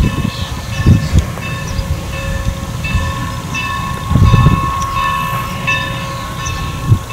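Norfolk & Western 4-8-0 steam locomotive No. 475 working hard at a distance, heard as an uneven low rumble that swells louder about a second in and again around four seconds in. A thin steady high tone runs throughout.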